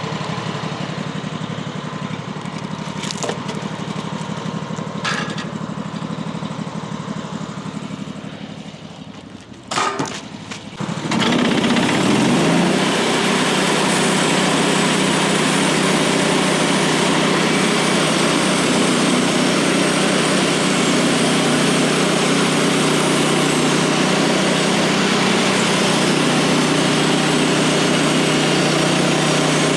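Portable bandsaw mill's gas engine idling steadily, briefly dropping low about 9 seconds in. After a few sharp clicks, the engine rises in pitch and settles into a loud, steady high-speed run.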